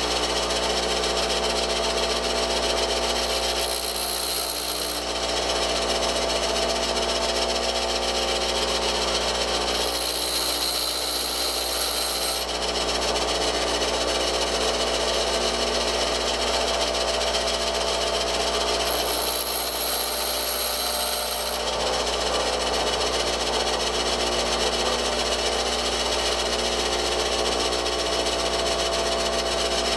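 Bench grinder running steadily with a motor hum, as a steel twist drill's point is sharpened on the wheel. The bit is pressed to the wheel three times, for one to two and a half seconds each, adding a high grinding hiss.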